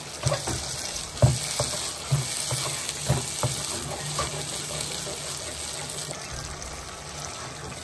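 Tomato-onion masala gravy sizzling in hot butter and oil in a nonstick kadai while a plastic spatula stirs and scrapes it. A steady hiss runs under repeated short knocks and scrapes of the spatula against the pan, the sharpest about a second in.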